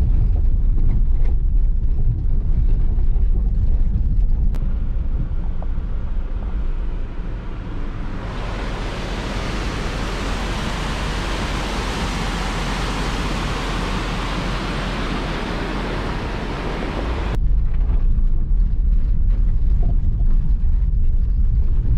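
Low road and engine rumble inside a Jeep driving a rough dirt forest road. From about eight seconds in to about seventeen, the steady rush of a whitewater mountain creek takes over, then the vehicle rumble returns.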